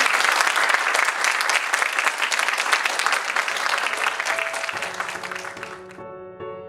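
Audience applauding, thinning out over several seconds and then cutting off abruptly near the end. Soft keyboard music comes in under the clapping shortly before it stops.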